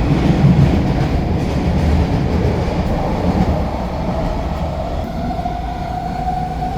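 SkyTrain train running on the track with a dense low rumble. About five seconds in, a steady whine comes in and rises slightly in pitch.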